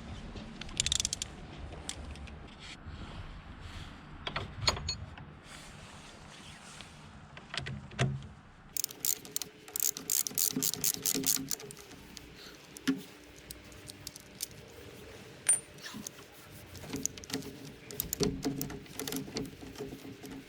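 Hand tools working on a motorcycle's front end: scattered metal clicks and knocks, then from about nine seconds in runs of rapid clicking as bolts are turned.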